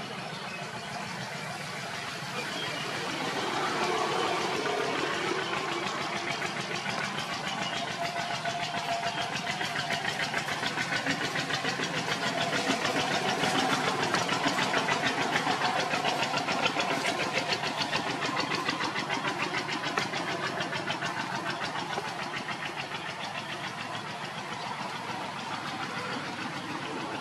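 An engine running with a rapid, even pulsing, growing louder toward the middle and then easing off.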